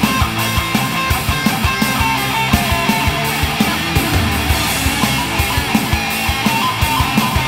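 Instrumental section of a heavy metal song: electric guitar over a steady drum beat, with no singing.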